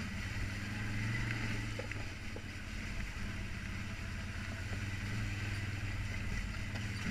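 ATV engine running steadily while the quad rides over a rocky, wet trail, with small rises and dips in its level.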